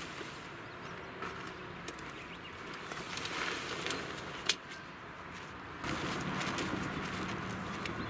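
Nylon fabric of a Coleman Cimarron dome tent rustling and swishing as the tent is collapsed and dragged over its groundsheet, with scattered light clicks and one sharp click about four and a half seconds in.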